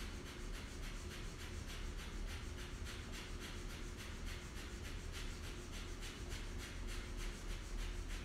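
Bhastrika (bellows breath): rapid, forceful breathing in and out through the nose, in even strokes of about three a second, like a panting dog.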